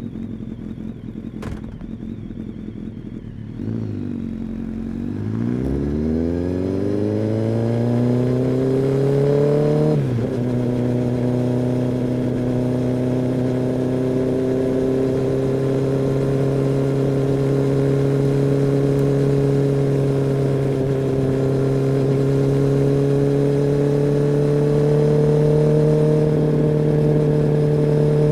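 Kawasaki ZX-10R's inline-four engine with a couple of sharp clicks in the first few seconds, then pulling away with the revs rising steadily. About ten seconds in the pitch breaks and drops at an upshift, and the bike runs on at a steady engine note with the revs creeping slowly up.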